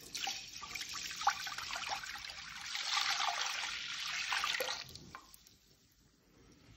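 Vinegar poured from a jug into a stainless steel pot onto peppercorns and bay leaves, a steady liquid pour that stops about five seconds in.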